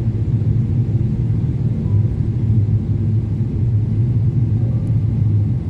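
Airliner cabin noise heard from a window seat on descent: a steady low rumble of the jet engines and airflow over the fuselage.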